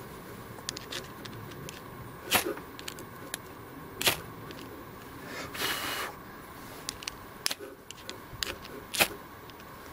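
Ferrocerium rod struck with a metal striker to throw sparks: a series of sharp metallic scrapes and clicks, with one longer rasping scrape about halfway through.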